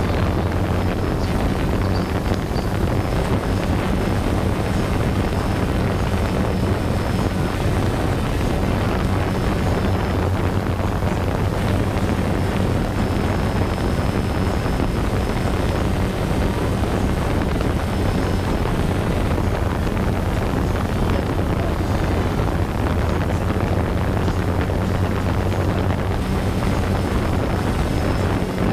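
DJI Phantom 2 quadcopter's motors and propellers buzzing steadily while it hovers, heard close up from the camera it carries, with some wind noise on the microphone.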